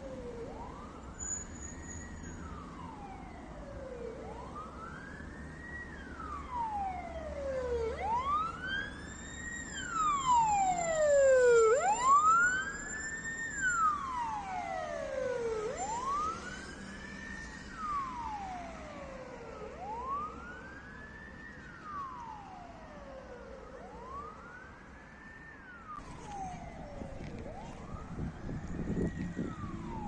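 Ambulance siren on wail, sweeping slowly up and down about once every four seconds. It grows louder toward the middle, where a second overlapping wail briefly crosses it, then fades.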